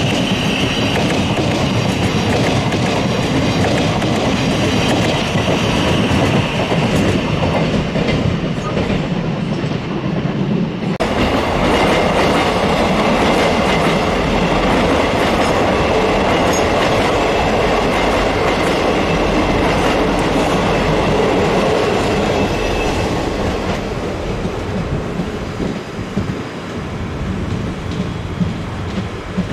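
Passenger trains passing at close range: a steady rumble of wheels on rail with clickety-clack over the junction's points. About eleven seconds in the sound changes abruptly as another train takes over, with a faint high whine for a while, and the rumble eases slightly near the end.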